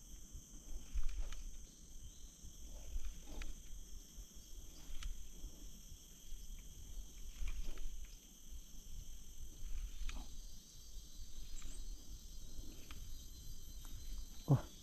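Steady high-pitched drone of rainforest insects, several pitches layered, over a low rumble, with scattered soft clicks and knocks. A brief louder low sound comes near the end.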